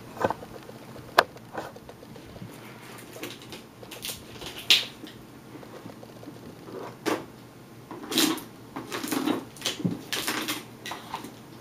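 Cardboard box being handled and opened by hand: scattered clicks, scrapes and rustles against the lid, with a sharp click about a second in and a run of louder scrapes in the second half.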